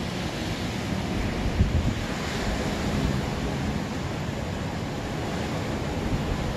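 Small ocean waves breaking and washing up the beach, with a surge of surf about two seconds in, and wind buffeting the microphone.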